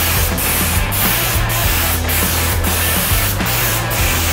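Compressed-air mini spray gun hissing as it sprays paint, with the hiss dipping briefly about twice a second.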